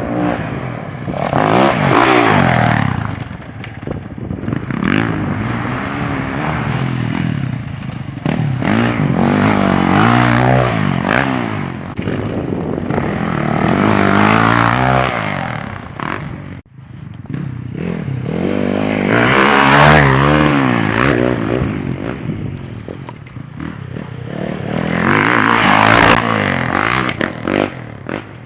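Motocross dirt bike engines revving, their pitch rising and falling with the throttle, growing loud and fading away several times.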